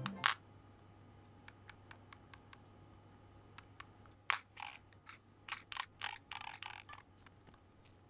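Light clicks and taps of a bent metal keyboard stabilizer wire and a toothpick against a phone's glass back as the wire is being greased. They come one at a time at first, then as a louder cluster of taps about halfway through.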